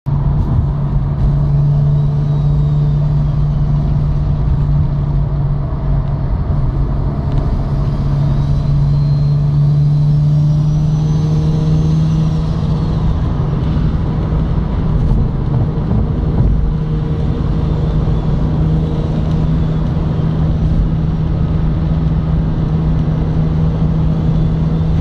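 Single-turbo Mazda RX-7's streetported 13B rotary engine running steadily at cruise, with road rumble underneath.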